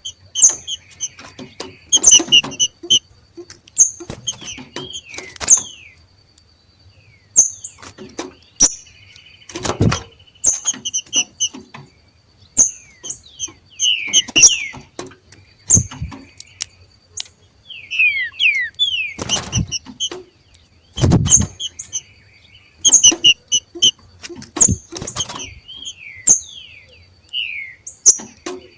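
Two green-winged saltators (trinca-ferro) giving their 'macheado' calls: bursts of sharp chips and quick downslurred notes, repeated every second or two with short pauses, mixed with sharp knocks.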